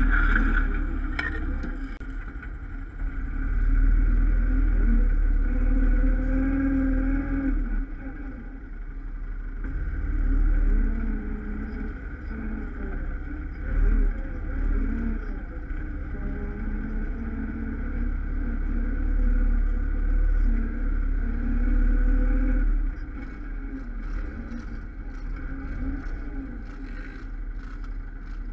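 Quad bike (ATV) engine running under way, its revs rising and falling as it is ridden over a rough, muddy track, with wind rumbling on the microphone. It eases off and gets quieter in the last few seconds.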